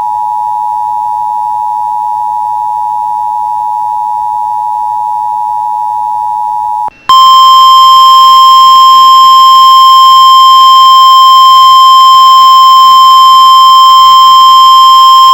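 Emergency Alert System attention signal: a steady two-tone alert held for about seven seconds. After a brief break comes a louder single steady tone, the NOAA Weather Radio warning alarm tone, announcing a severe thunderstorm warning.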